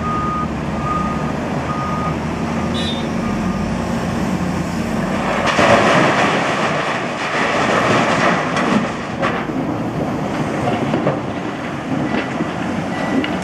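Liebherr 954 crawler excavator's diesel engine running under load while it dumps a bucket of quarry rock into an articulated dump truck's steel body: the rock crashes in about five and a half seconds in, followed by scattered knocks of stones settling. A few short warning beeps sound in the first three seconds.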